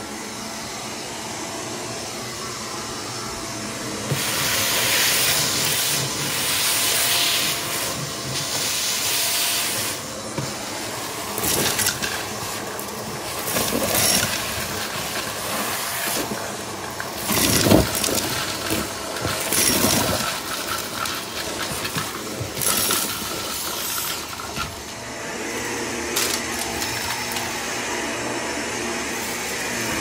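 Hoover vacuum cleaner running as it picks up a test mess, its hissing rush swelling and dipping as it moves, with short rattles and clicks of debris in the middle stretch.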